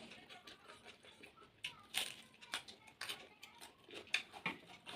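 A person eating on a close microphone: chewing with irregular short mouth clicks and smacks, a few sharper ones among them.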